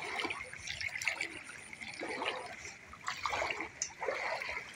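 Floodwater sloshing and splashing in irregular bursts, about once a second, as a motorcycle is walked by hand through shin-deep water.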